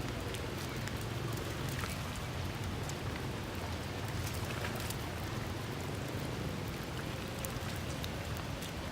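Steady rain falling: an even hiss with many scattered, sharp drop ticks.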